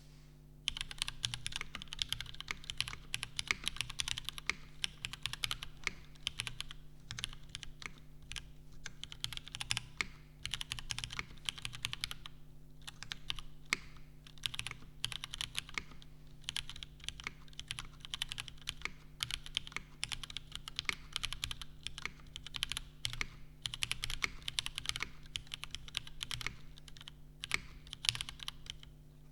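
Steady fast typing on a custom mechanical keyboard with lubed Cherry MX Black linear switches, a full nylon plate and GMK keycaps. The typing starts about half a second in and breaks off briefly a few times.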